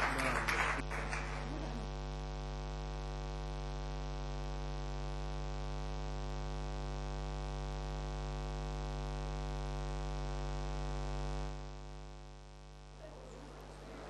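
Steady electrical mains hum, a buzz with a long ladder of overtones, that drops away about twelve seconds in, leaving faint room noise. Applause fades out in the first second or two.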